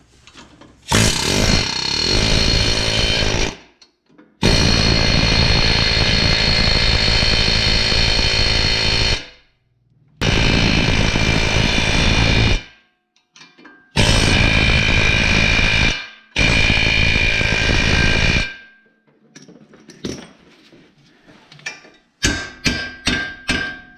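Pneumatic air hammer with a chisel bit hammering on a steering knuckle to free the lower ball joint from it. It runs in five bursts of two to five seconds each, and a few light metal clinks follow near the end.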